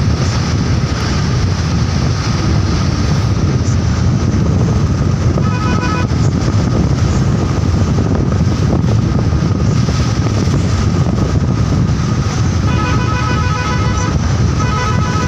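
Steady, loud road and wind noise from a moving vehicle: a heavy low rumble with wind blowing on the microphone.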